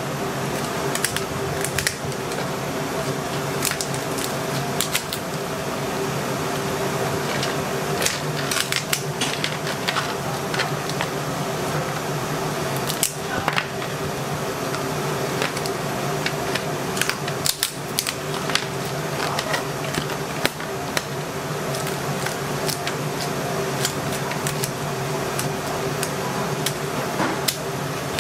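Kitchen scissors snipping and cracking through cooked king crab shell, many irregular sharp clicks, over a steady background hum.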